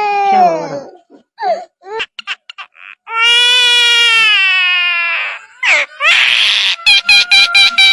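A bird giving long, drawn-out wailing calls that sound like crying, each held about two seconds. They are followed by a harsh screech and a quick run of short chattering notes near the end.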